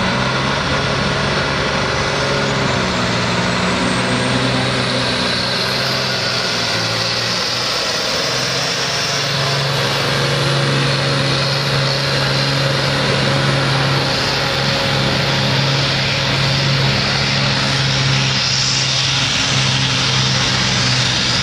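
Volvo BM 810 tractor's diesel engine running hard under full load as it drags a weight-transfer pulling sled, a steady, loud engine note held through the pull.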